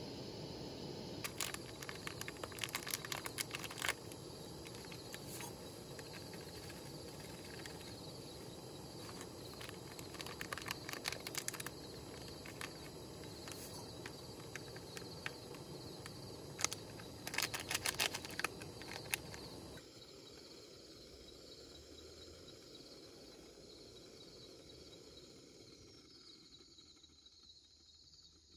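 Quiet outdoor night ambience: a steady high insect chirring over a soft background hiss, with three short clusters of sharp clicks. The sound drops quieter about two-thirds of the way through.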